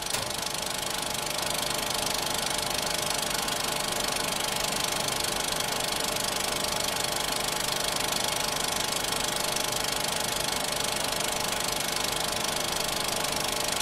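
Film projector running: a steady, rapid mechanical clatter with a whirring hum, reaching full level about a second in.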